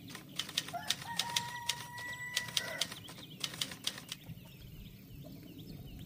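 Chicken pecking feed from a plastic cup: sharp, irregular taps, fairly quiet. A faint steady tone is held for about two seconds, starting about a second in.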